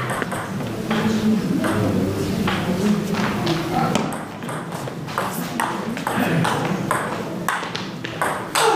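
A table tennis rally: the celluloid-style ball clicks sharply back and forth off the players' bats and the Tibhar table in quick succession.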